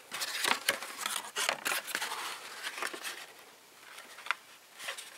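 Thin cardboard of a shotgun shell box being folded and pressed by hand along a freshly hot-glued seam. A quick run of short scrapes and crackles fills the first two seconds, then a few single taps and rubs follow.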